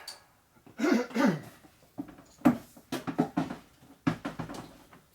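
Irregular knocks and clatter of metal tools and parts being handled, a dozen or so short strikes, the loudest about a second in and about two and a half seconds in.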